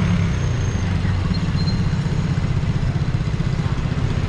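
Motor scooters and motorcycles in street traffic, their small engines running with a rapid low pulse.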